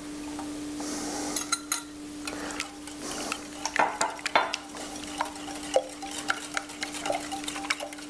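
Wire whisk beating eggs and milk in a ceramic mixing bowl, the wires clicking rapidly and irregularly against the bowl, under a steady low hum.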